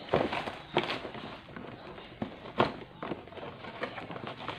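Cardboard box being opened by hand: rustling of cardboard and packing with several sharp snaps and knocks, the loudest about two and a half seconds in.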